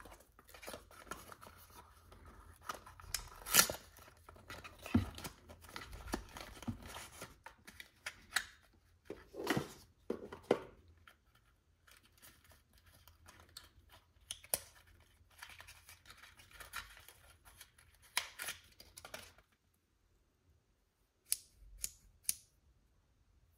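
Cardboard packaging being handled: the flaps and sides of a stiff white card box rubbing and scraping open, with rustling and a sharper knock about three and a half seconds in. Near the end, after a short quiet pause, two sharp clicks as the arms of a spring-loaded phone clamp are pulled out.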